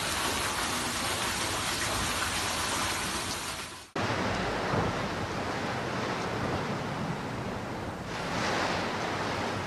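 Steady rushing noise of heavy storm rain and wind. About four seconds in it cuts off abruptly and a similar steady rushing sound follows, swelling briefly near the end.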